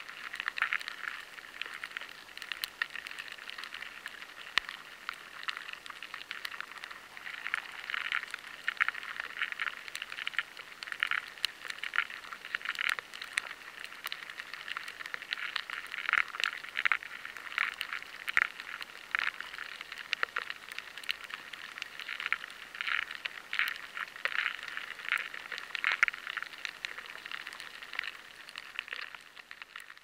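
Weevil larvae scraping and gnawing inside rice grains, picked up by a high-sensitivity vibration recording. A dense, irregular crackle of tiny scratches and clicks, bunching into brief louder clusters every second or so.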